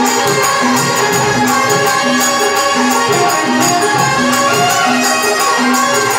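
Live Rajasthani devotional bhajan music: a dholak beats a steady rhythm under jingling hand percussion, with harmonium and electronic keyboard carrying the melody.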